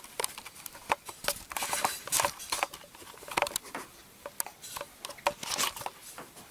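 Irregular handling noise: scattered short clicks, taps and brief rustles of objects being moved and handled, with no steady sound underneath.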